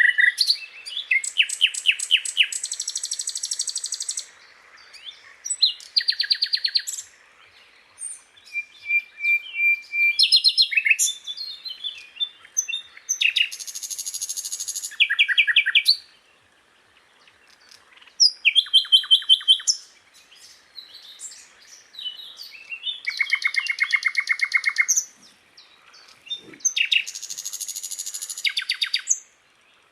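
Sikatan londo, a flycatcher, singing a varied song of separate phrases: fast trills, dense buzzy rattles and short whistled notes, with brief pauses between phrases.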